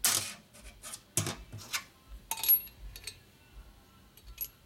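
Small steel valve parts clinking and tapping as they are handled and fitted on a Sportster ironhead cylinder head: a handful of light, separate clicks. Two of them, about halfway and near the end, carry a short high metallic ring.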